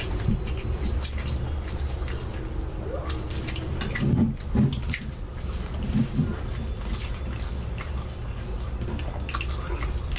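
Close-up eating sounds from two people eating poori with rajma and potato curry by hand: wet chewing, lip smacks and mouth clicks, a little louder around the middle, over a steady low hum.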